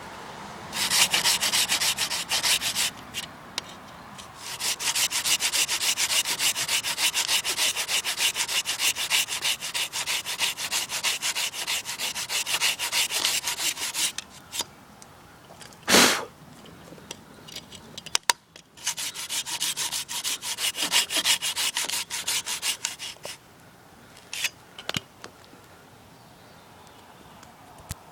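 Hand saw cutting into a tree in quick back-and-forth strokes, in three runs with pauses between them. A single loud knock falls in the longest pause, about halfway through.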